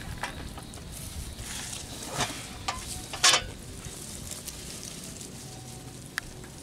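Hands rummaging through weeds and wet mud in a shallow ditch: a low crackling rustle, with two louder brushing sweeps about two and three seconds in.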